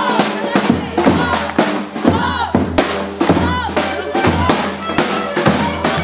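Music with a steady drum beat under a melody that rises and falls, over a low steady drone.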